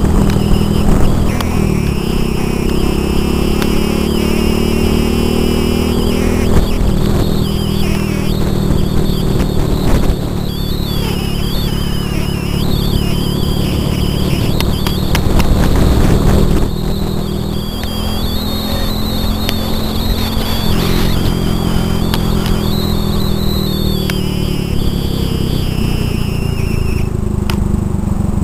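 Motorbike engine running steadily while riding along at road speed, with wind buffeting the microphone. The engine note eases a little about two-thirds of the way through.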